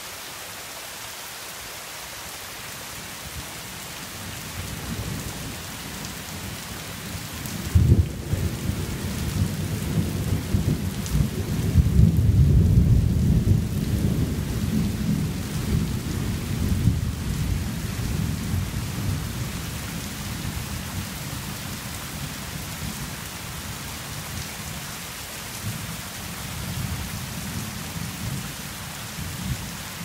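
Steady rain falling on foliage, with thunder: a sharp crack about eight seconds in, then a long low rumble that is loudest a few seconds later and rolls away slowly.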